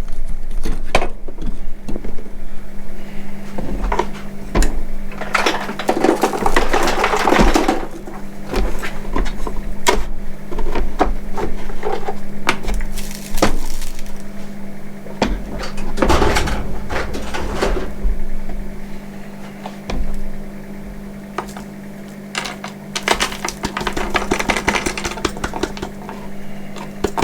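Hands-on handling of a Milwaukee M18 shop vac as it is opened up to get at its filter: a string of sharp plastic clicks and knocks, with three longer stretches of rustling and scraping. A steady low hum runs underneath.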